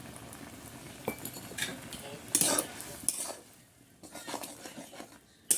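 Kitchen utensils clinking and scraping against dishes and pots in a few separate strokes. The loudest is a scrape about two and a half seconds in, and a sharp clink comes near the end.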